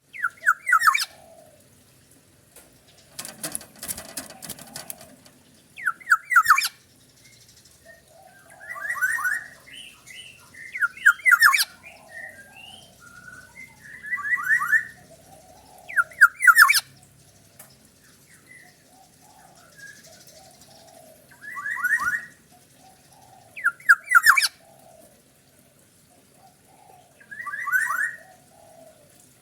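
Black-naped oriole (kepodang) giving short, repeated calls about every two to three seconds, with softer notes in between. A brief rustling noise about three seconds in.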